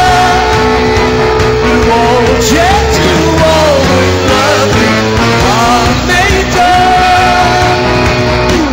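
Live rock band playing loudly with a male lead vocal, electric bass and drums, the singer holding long notes near the start and near the end.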